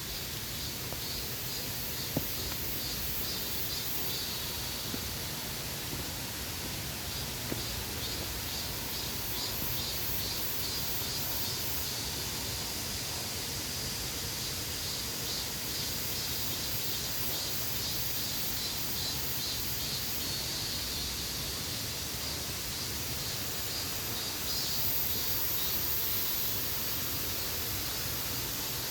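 Forest ambience: a steady hiss with a fast, pulsing high-pitched chirring over it and a couple of faint clicks.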